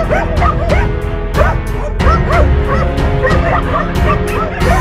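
A pack of hunting dogs barking and yelping rapidly, several calls a second, baying a wild boar in the water, over background music with a steady beat.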